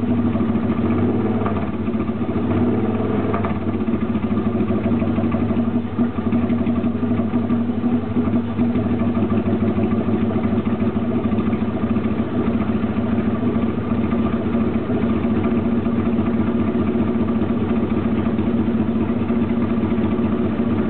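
Yamaha XS650B's air-cooled parallel-twin engine idling steadily, its revs wavering briefly in the first few seconds, on a test run of the engine.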